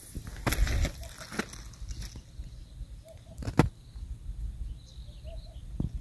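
Outdoor ambience with wind rumbling on a handheld phone's microphone, surging louder about half a second in. Two sharp knocks come through, one about three and a half seconds in and one near the end, with a few faint short calls in the distance.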